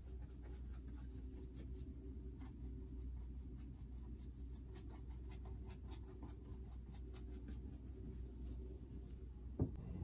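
Paintbrush dabbing and scratching acrylic paint onto stretched canvas in quick, irregular little strokes, over a steady low hum. A single thump near the end.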